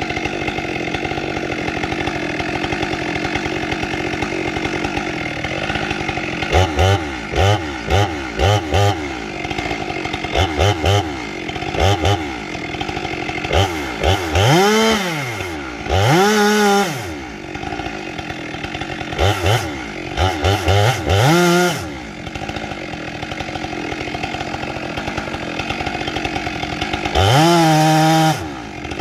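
Stihl 462 two-stroke chainsaw idling, blipped up and back down to idle over and over. Near the end it is held at high revs for about a second.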